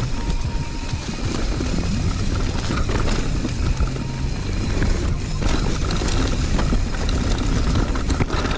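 Mountain bike rolling fast down a dry dirt trail covered in leaves: tyre noise over dirt and leaves with wind on the microphone, and a few knocks from the bike going over bumps.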